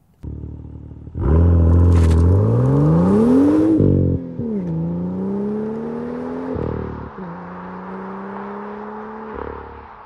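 BMW M2 F87's turbocharged N55 straight-six, fitted with a modified aftermarket exhaust, accelerating hard through the gears. The note rises steadily through the first pull, which is the loudest part, and drops at upshifts about four and seven seconds in before climbing again.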